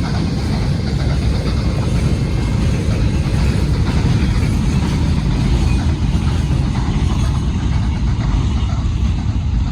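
Steam train running past, a loud, steady low rumble.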